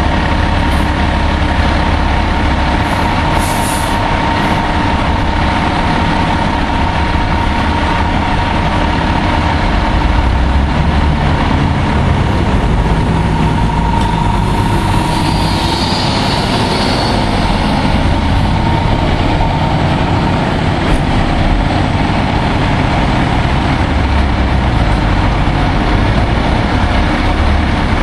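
Sutphen aerial ladder truck's diesel engine running steadily while the aerial ladder is in use, with a brief hiss about fifteen seconds in.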